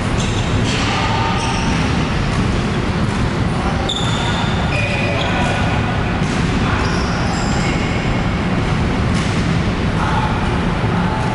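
Sports-hall ambience during badminton: a steady low rumble, with short high squeaks of court shoes on the sports floor coming every second or so.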